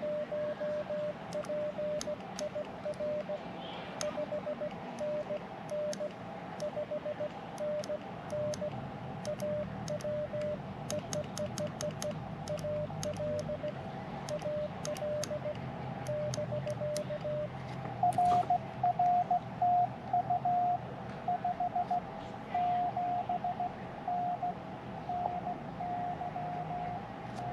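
Morse code (CW) from a ham radio transceiver: a steady sidetone keyed on and off as the operator sends with a small paddle key, its contacts clicking along with the keying. About 18 seconds in a slightly higher, louder Morse tone takes over, a received station answering.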